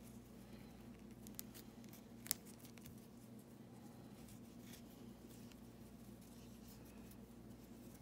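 Near silence: faint handling of nylon paracord as it is tied into an overhand knot, soft rustles and two small clicks, the louder one a little over two seconds in, over a low steady hum.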